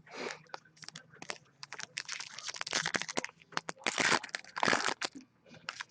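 Hockey card packs and cards being handled: foil wrappers crinkling and card stock rustling and clicking in irregular bursts, busiest and loudest in the second half.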